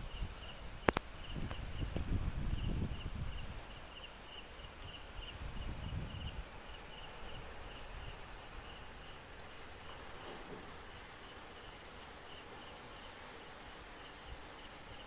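Insects chirping outdoors: a regular pulsed chirp, a few a second, that stops about seven seconds in, over a continuous high-pitched trill. A low rumble sits under it for the first few seconds, with a single sharp click about a second in.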